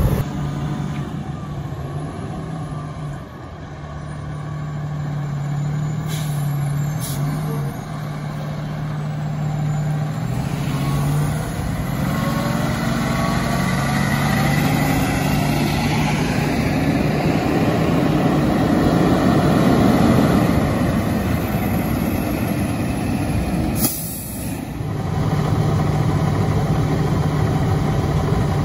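Heavy fire truck diesel engines: an aerial ladder truck drives past, its engine rising in pitch and growing louder, then a fire engine idles steadily near the end.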